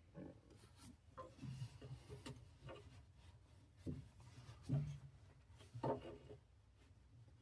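Faint handling noises: scattered knocks, clicks and rubbing, with two sharper knocks about halfway through, a second apart.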